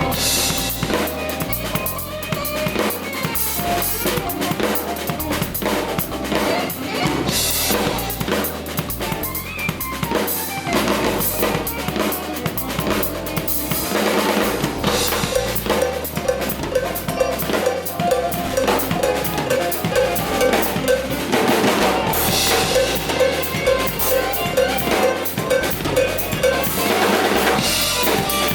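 A drum kit played continuously in a busy, fast pattern of bass drum and snare hits, with cymbal crashes at several points.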